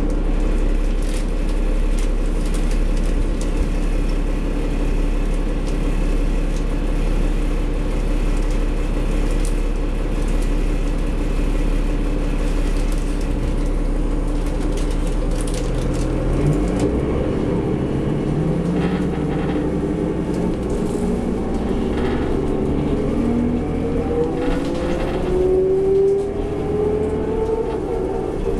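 Cummins ISL inline-six diesel of a New Flyer D40LF city bus heard from inside the cabin, running steadily with a deep rumble. About halfway through it pulls away, its pitch rising as it accelerates through the ZF Ecomat automatic gearbox, with a gear change near the end.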